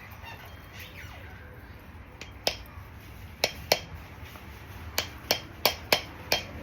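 About eight sharp, light taps, irregularly spaced and mostly in the second half: the new camshaft being tapped into its bearing bore in the Yamaha Zuma 125 cylinder head.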